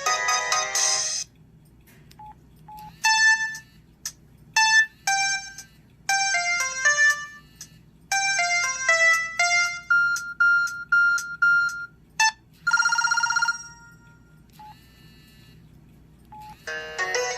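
Samsung Wafer cell phone's built-in ringtones previewed one after another through its small speaker. A melody cuts off about a second in. Short beeps and chime-like notes follow, then a run of about five identical beeps, a brief buzzy tone, and another melody starting near the end.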